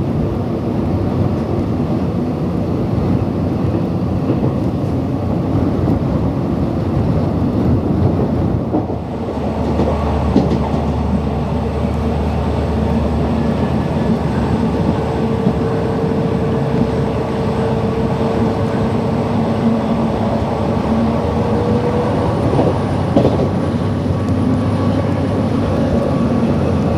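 Diesel-hauled express train running along the track, heard on board: a steady rumble of wheels on rails. A faint steady whine sits over it for several seconds in the middle.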